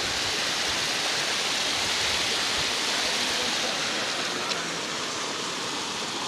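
Muddy floodwater of a swollen stream rushing steadily over and past a washed-out culvert: a constant, even sound of fast-flowing water.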